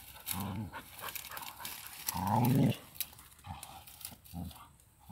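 Dog growling three times in short, low growls while it grips a monitor lizard in its jaws, with rustling and small clicks from dry grass between the growls.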